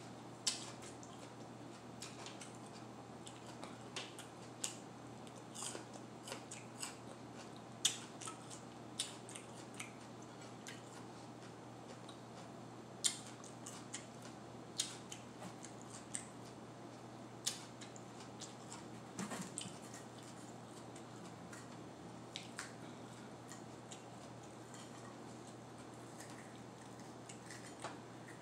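Faint, scattered clicks and light scrapes of a table knife against a mini sweet pepper and a plate as cream cheese is spread into the pepper.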